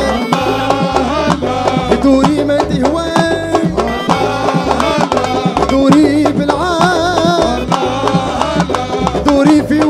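Live Tunisian popular music: a young man singing a wavering melody into a microphone over a band of darbukas, frame drums and keyboards playing a steady dance beat.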